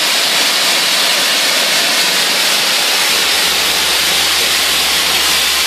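Vapor abrasive blasting nozzle spraying crushed recycled glass and water at high pressure, a loud steady hiss. About halfway through a low steady hum comes in underneath.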